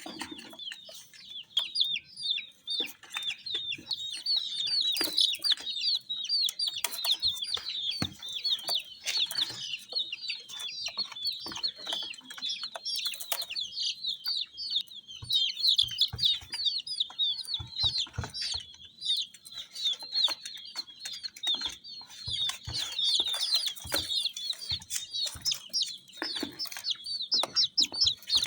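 A group of baby chicks peeping continuously: many short, high chirps overlapping without a break. Scattered short taps and knocks sound among the peeps.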